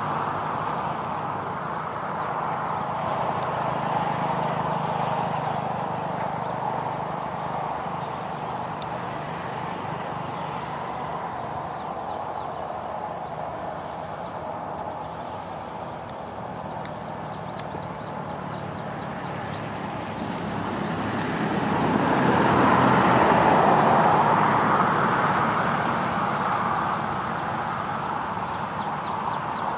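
Distant diesel engines of dump trucks and an excavator running steadily in the open, with a low hum under a rushing band that swells louder about two-thirds of the way through. Faint, evenly spaced high chirps sound over it.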